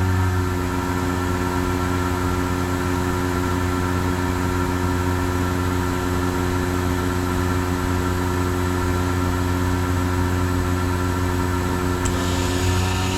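CompAir L37S-9 50 hp rotary screw air compressor running with a steady hum. Near the end a click is followed by a rush of hissing air that carries on.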